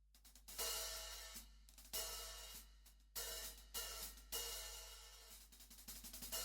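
Handmade B20 bronze cymbal being struck repeatedly, light quick taps mixed with harder hits that each ring out and fade, with a fast run of light taps near the end.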